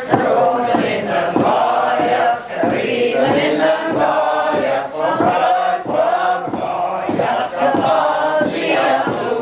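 Group of men and women singing a Gaelic milling song in chorus, with the wet woollen cloth thumped on the wooden table in a steady rhythm to the song's beat.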